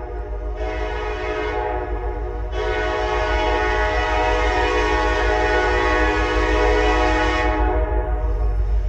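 Freight locomotive's air horn sounding one long blast of about seven and a half seconds, swelling about two and a half seconds in and cutting off near the end, over a steady low rumble.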